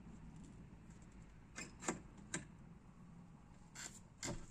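Faint clicks and clanks, about five in all, two close together a little before the middle and the sharpest near the end: the lock and latch of a metal shed door being worked open.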